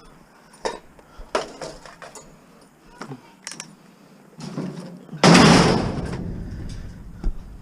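A few light knocks and clanks, then about five seconds in a loud heavy crash with a long rattling decay as a treadmill is heaved down while being loaded as scrap.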